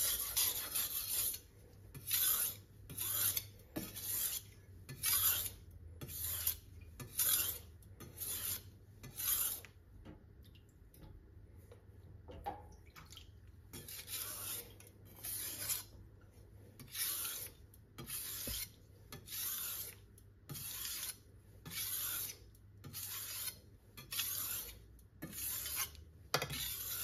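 Kitchen knife blade scraping across a whetstone in single alternating strokes, one on each side, about one stroke a second, with a pause of a few seconds about ten seconds in. These are the finishing passes that bring the edge to the centre so both sides are symmetrical.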